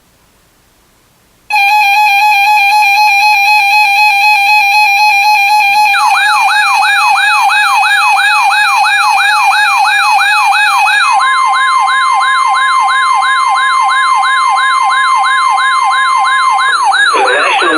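Weather radio alert tones for a Special Marine Warning. After a moment of radio static, a steady buzzy electronic alarm tone starts; a rapid warbling siren, about five sweeps a second, joins about six seconds in. From about eleven seconds a steady single tone, the weather radio's 1050 Hz warning tone, plays over the warble and stops just before a voice begins near the end.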